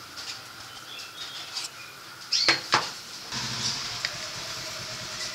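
Two sharp plastic clacks, about a quarter second apart, a little past halfway in, as the engine-bay fuse box cover is handled. About a second later a steady rushing noise with a low hum sets in.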